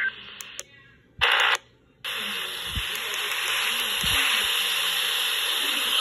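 Midland weather radio's speaker: a brief burst of sound about a second in, then, about two seconds in, steady loud radio static hiss that runs on.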